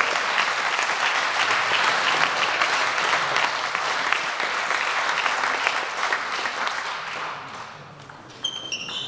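Spectators clapping after a point in a table tennis match, dying away after about seven seconds. Near the end, a few short high pings of the celluloid table tennis ball bouncing.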